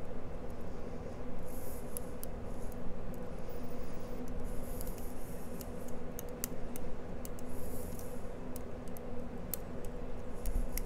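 Lock pick working the pins inside a pin-tumbler lock cylinder: scattered light metallic ticks and a few short scratching strokes, over a steady low hum.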